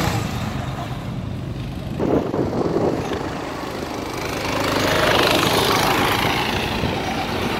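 Rental go-kart engines running as karts drive past on the track. The sound gets louder from about four to six seconds in as karts pass close by.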